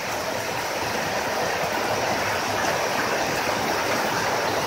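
Steady rushing noise of a heavy tropical downpour, with floodwater running across the road.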